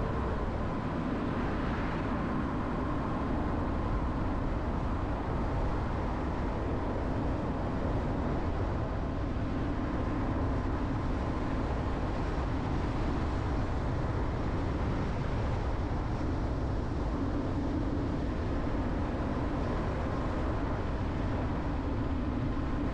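Jeep Renegade being driven: steady engine and road noise with no change in pace.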